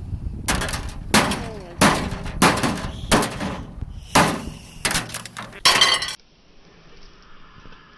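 A microwave oven being smashed: about eight hard blows in a row, each with glass and metal breaking and clinking. The blows stop abruptly about six seconds in.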